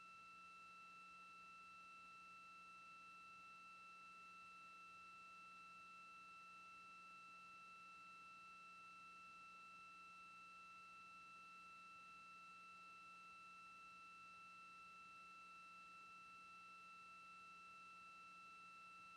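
Near silence, apart from a faint, perfectly steady high electronic whine with overtones in the broadcast audio.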